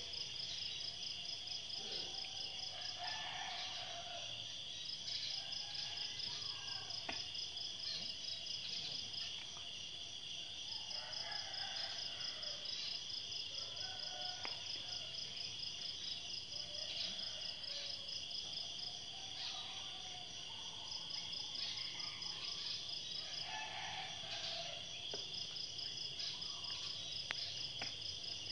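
Insects chirping: a constant high-pitched drone with a faster, higher pulsing trill above it that comes and goes in runs of a few seconds. Short mid-pitched calls and a few faint clicks are scattered through it.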